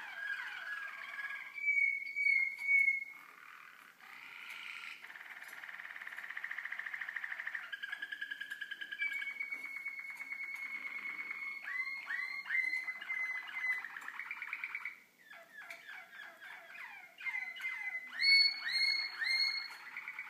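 Young Waterslager (Malinois) canary song: rolling trills and held whistled notes, with runs of quick falling notes, about three a second, in the second half.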